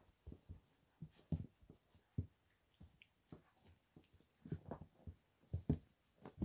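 Nineteen-day-old Tibetan mastiff puppies crawling over each other on bedding: soft, irregular thumps and rustles, coming thicker near the end.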